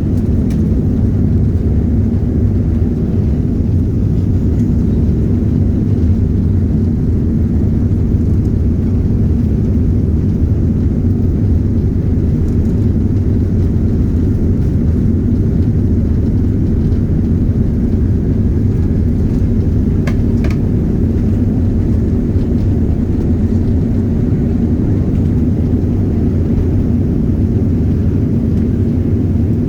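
Inside the rear cabin of a Boeing 737 during takeoff and climb-out: the jet engines at takeoff thrust make a loud, steady, deep rumble.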